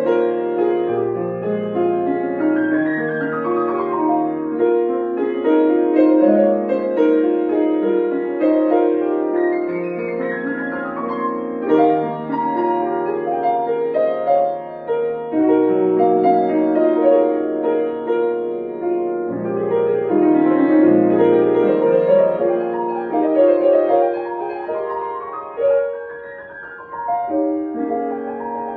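Solo piano played continuously, a flowing melody over an accompaniment with runs of notes that climb and fall, softening briefly near the end.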